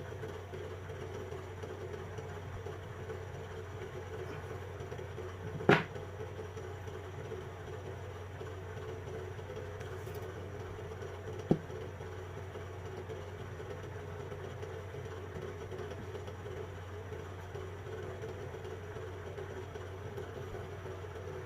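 Steady low electrical hum, with two sharp clicks, one about six seconds in and one near the middle.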